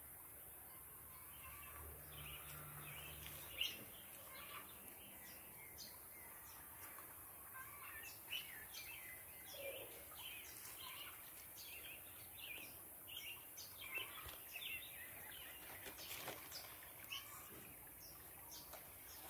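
Faint chirping of small birds, many short calls overlapping, with one brief knock about three and a half seconds in.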